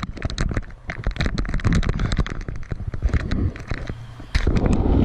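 Camera handling noise: rapid, irregular crackling clicks and scrapes as the camera is moved around, with a louder rumble on the microphone starting a little over four seconds in.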